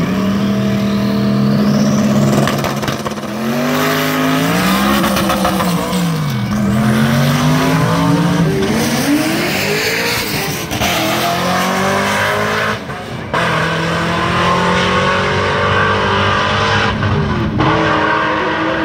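Two drag cars, one of them a C6 Corvette, held at high revs on the start line, then launching about two seconds in and accelerating hard down the strip. Engine pitch climbs and drops back with each gear change.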